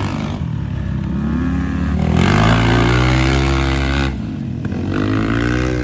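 Dirt bike engine revving as the bike rides the motocross track, its pitch rising and falling with the throttle and gear changes. It is loudest in the middle and drops back about four seconds in.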